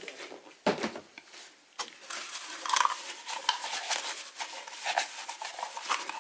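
A paper towel rubbing back and forth over a taut stretched canvas as it is wiped down with alcohol, a dense scratchy rubbing that starts about two seconds in, after a single low knock.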